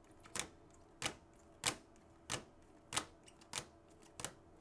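Sharp, evenly spaced clicks, about three every two seconds.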